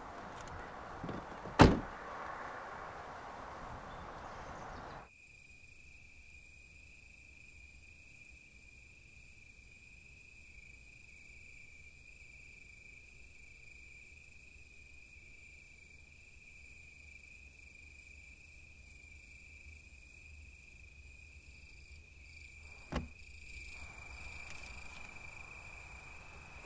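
A car door shuts with one sharp, loud knock over outdoor background noise. A few seconds in the background cuts out, and a steady high-pitched tone holds from there on, with one more knock near the end.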